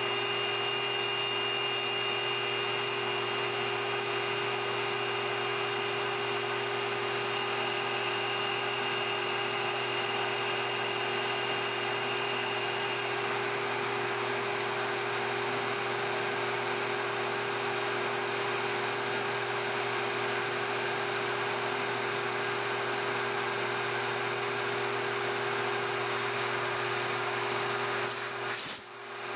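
Cue lathe and live-tooling spindle motor running steadily with a mechanical whine while the cutter machines the bore for the joint pin in a cue. A high tone in the whine stops about halfway, and the sound briefly drops out near the end.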